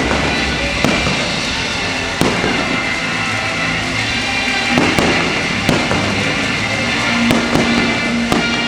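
Aerial fireworks bursting, about nine bangs at uneven gaps, over continuous music.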